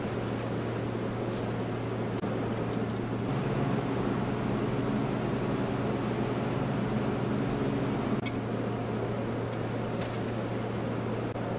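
Steady low electrical hum with hiss from a bench power supply driving an electroplating bath.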